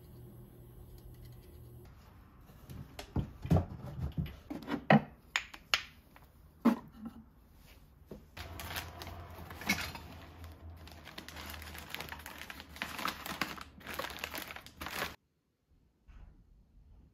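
Household handling sounds: a run of sharp knocks and clatters as objects are set down, then several seconds of plastic packaging crinkling over a low hum, cutting off suddenly near the end.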